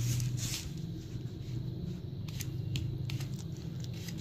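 Hand mixing flour with water in a plastic bowl to knead dough, heard as a few light clicks and soft handling sounds over a low steady hum.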